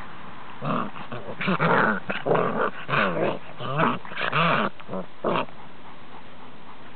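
Five-week-old Cane Corso puppies play-growling as they wrestle: a run of about eight short growls and yaps over some five seconds.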